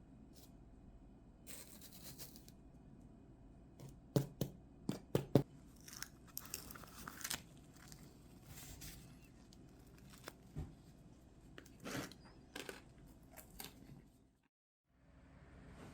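Handling sounds: a few sharp clicks and taps, then rustling and tearing noise.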